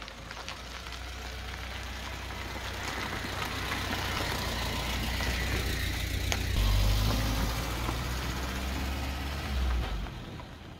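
A motorhome's engine running as it drives across gravel: a steady low rumble that grows louder as it comes near, peaking about two-thirds of the way through, then fades out near the end.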